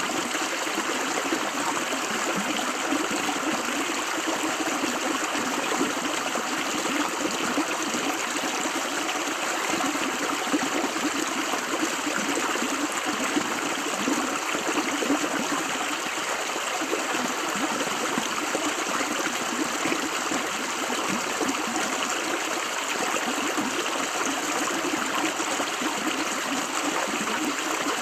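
River water running over stones, a steady rushing and babbling flow.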